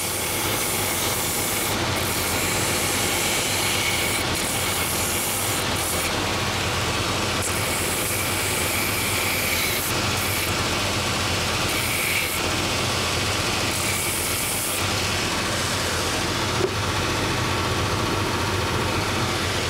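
Purpose-built last-making belt sanding machine with 3-inch-wide, 24-grit belts running steadily while a wooden shoe last is sanded on it. The hiss of the belt cutting the wood comes and goes every few seconds as the last is pressed on and eased off.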